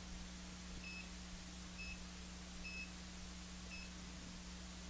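Keypad of an SNS-3V digital readout beeping as its keys are pressed: four short high beeps about a second apart, the third a little longer, as an angle is typed in and entered. A low steady hum runs underneath.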